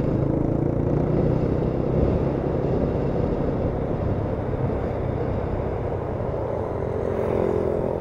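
Honda Tiger's single-cylinder four-stroke engine running steadily at road speed, heard from on the moving motorcycle, easing off a little about halfway through.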